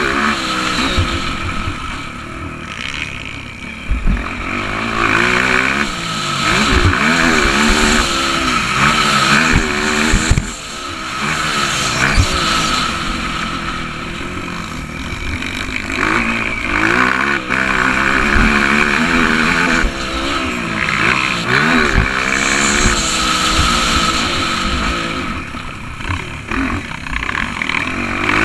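Honda CRF230 dirt bike's single-cylinder four-stroke engine being ridden hard, its pitch rising and falling over and over as the throttle opens and closes, with occasional thumps.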